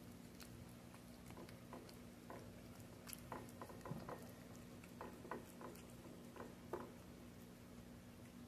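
Cat chewing and licking wet food in gravy from a glass dish: faint, irregular small wet clicks, busiest from about three to seven seconds in.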